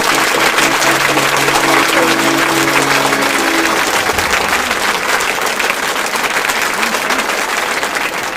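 Audience applauding, a dense steady clatter of many hands. The song's final held chord rings under it and stops about three and a half seconds in.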